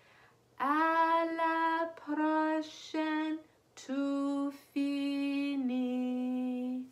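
A woman singing a goodbye song slowly and unaccompanied, in long held notes that step down in pitch over the phrase.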